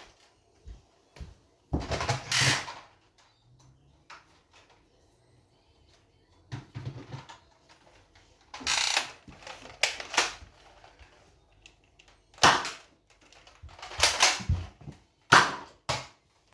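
Nerf blaster being handled, primed and fired at a cup: about seven sharp clacks and short bursts of noise, spread a second or more apart.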